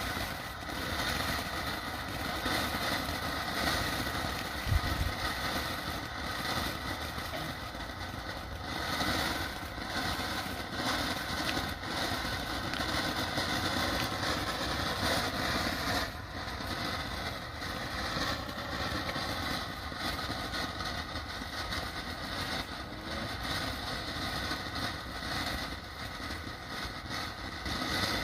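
Ground fountain firework burning: a steady spraying hiss with dense crackle, and a single brief thump about five seconds in.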